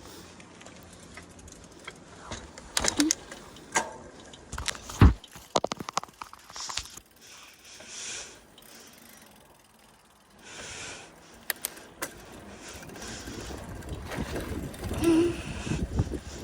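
Carrera mountain bike clicking and rattling as it is handled and set off on a ride, with a loud thump about five seconds in and bursts of rushing noise later on.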